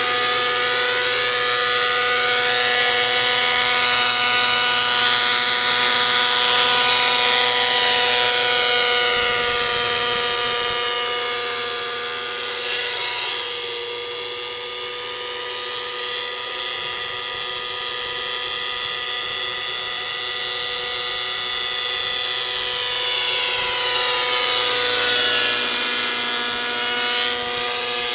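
Align T-Rex 600 nitro RC helicopter in forward flight: its O.S. 55 glow engine and rotors run at a steady high pitch. The sound is louder as it passes close at the start and again near the end, and fainter in between.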